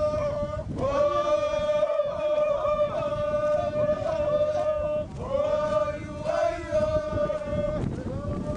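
Voices chanting in long, high held notes, each sustained for several seconds, with short breaks about a second in, about five seconds in and near the end.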